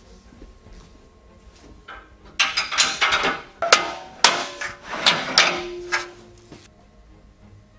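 Black metal mounting plates clattering and clanking as they are hooked onto the steel frame of a mobile video-wall stand. It starts about two and a half seconds in as a run of knocks and scrapes with several sharp clanks, and ends with a short squeak.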